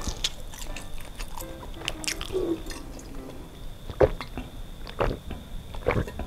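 A person drinking from a stainless-steel bottle: light clicks and mouth sounds, then three loud swallowing gulps about a second apart in the last couple of seconds.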